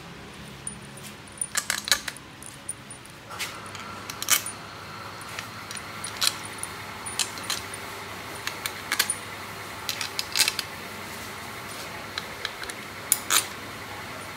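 Small steel bolts clinking and tapping against each other and on metal as they are handled and counted out: the long bolts for the clutch cover of a Honda Wave RSX 110 engine. The clicks come irregularly, some in quick clusters.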